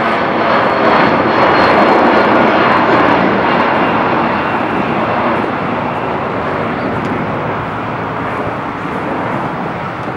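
Boeing 757-200 airliner climbing out after takeoff, its Rolls-Royce RB211 turbofans at climb thrust giving a broad, steady jet rush with a faint high whine in the first few seconds. The sound slowly fades as the jet climbs away.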